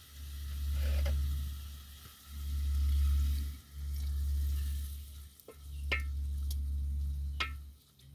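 Wooden spoon stirring food frying in a metal cooking pot, with sizzling, and water poured in about four seconds in. The spoon knocks sharply against the pot twice in the second half. A low rumble swells and fades several times underneath.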